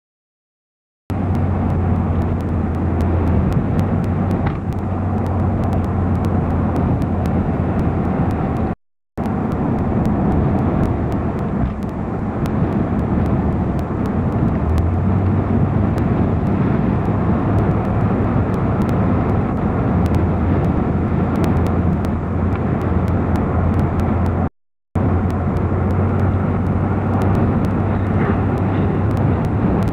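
Moving car heard from inside the cabin: a steady rumble of engine and road noise with a low drone. It starts abruptly about a second in and cuts to silence twice at tape edits.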